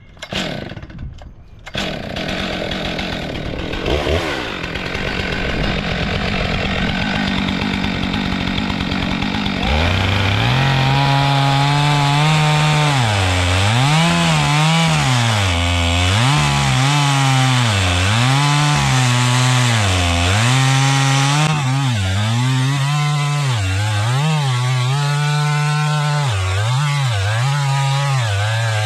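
Stihl MS 661 two-stroke chainsaw with a 36-inch bar on an Alaskan chainsaw mill, running and then ripping a board lengthwise out of a white oak log. From about ten seconds in, its engine note repeatedly drops under the load of the cut and picks back up.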